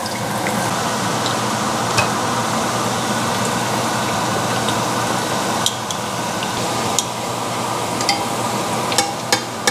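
Hot oil sizzling steadily in a cast-iron skillet as battered pieces fry, with a few light clicks of utensils against the pan.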